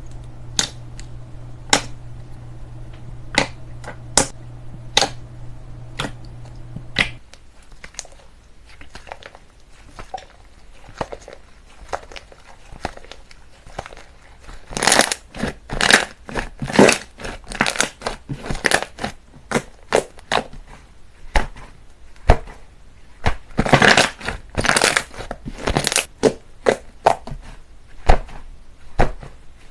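Slime being squeezed, poked and stretched by hand, making sticky pops and clicks. The pops are sparse at first over a low steady hum that stops about a quarter of the way in, then turn into dense runs of crackling from about halfway.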